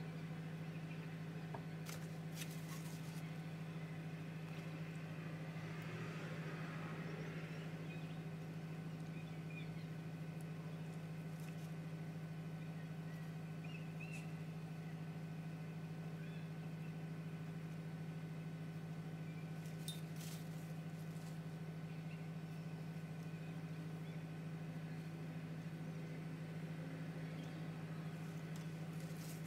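A steady low hum from a fan or appliance running, with a few faint clicks about two seconds in and again about two-thirds through.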